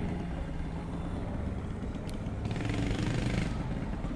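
Small single-cylinder mini bike engine idling with a steady low putter.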